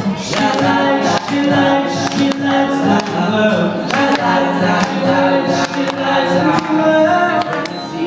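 A vocal group singing in harmony, several voices holding notes together.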